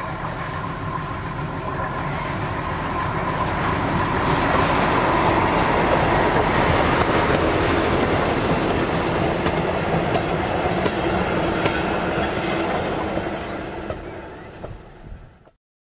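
Small diesel locomotive hauling a passenger coach past on light rail. The engine and the running gear grow louder as the train approaches, are loudest as it passes, then fade away, and the sound drops out near the end.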